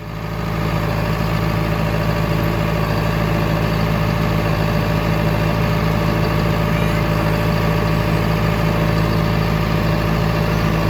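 Vehicle engine running steadily, a loud, even low hum with no change in speed. It cuts in abruptly at the very start.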